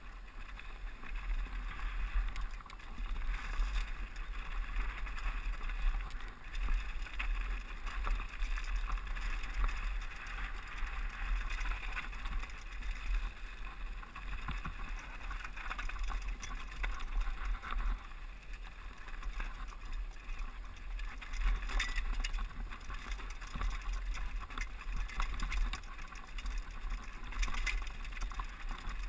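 Mountain bike descending a rocky, loose dirt trail, heard from a helmet-mounted GoPro: a steady rush of wind on the camera with a low rumble, and tyres crunching and rattling over gravel and stones, with many small knocks from the bike.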